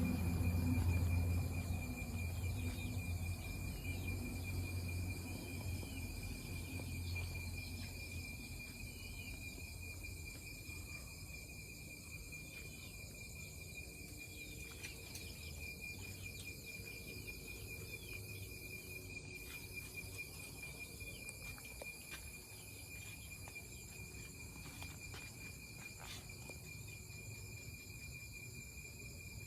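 Night insects, crickets among them, calling steadily with a constant high-pitched tone. A low rumble fades away over the first ten seconds or so.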